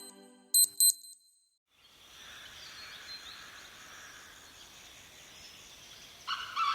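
Explay Diamond phone alarm tones: two pairs of short high beeps end one alarm about half a second in, then after a brief silence the next alarm opens with a faint nature ambience of birds, and a melody of bright tones comes in near the end.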